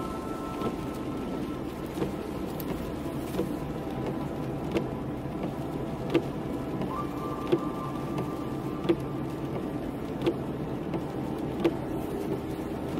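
Car driving on a wet road, heard from inside: steady road and engine rumble with a light tick about every second and a half.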